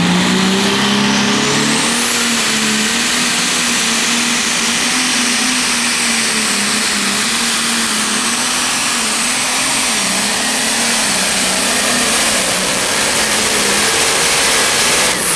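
Pro Stock pulling tractor's turbocharged diesel engine running flat out under load as it drags the sled, with a high turbo whine that climbs over the first two seconds and holds. Near the end the whine falls away and the engine comes off as the pull ends.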